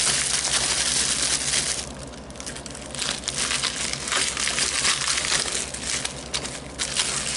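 Plastic bubble wrap crinkling and crackling as it is pulled off a toy locomotive, easing briefly about two seconds in.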